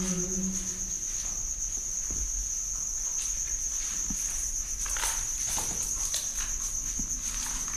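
Crickets trilling steadily at one high pitch, with a few soft scuffing footsteps about five seconds in.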